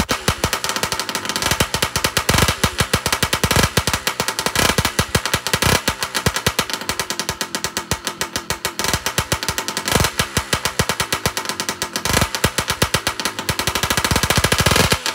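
Two-stroke motorized-bicycle kit engine idling on its stand through a BBR Tuning expansion-chamber exhaust: a rapid, uneven putter whose speed keeps rising and falling, picking up near the end.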